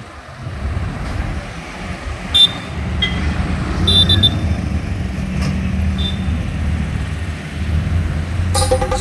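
Road traffic: a steady low rumble of passing engines, with a few short high horn beeps about two and a half and four seconds in. Music comes in near the end.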